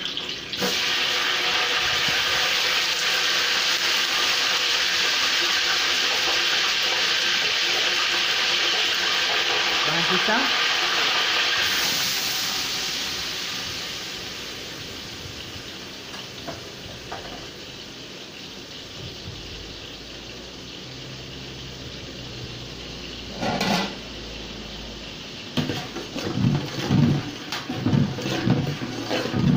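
Whole spices in their soaking liquid tipped into hot oil in a large aluminium pot: a sudden, loud sizzle that holds for about twelve seconds, then dies down to a quieter frying sizzle. Near the end a spoon scrapes and knocks against the pot as the spices are stirred.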